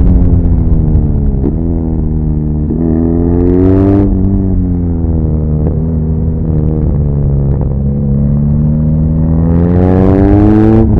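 BMW R nineT Pure's stock 1170 cc air/oil-cooled boxer twin, heard from on the bike while riding. Revs climb for the first few seconds, then sink slowly as the throttle eases off, then climb again near the end until a sudden drop at the close.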